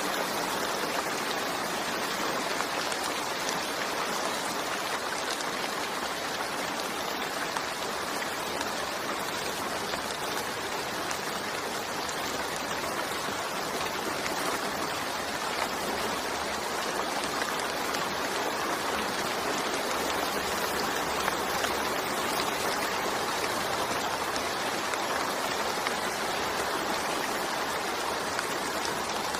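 Steady rain falling: a dense, even hiss of countless drops that keeps the same strength throughout.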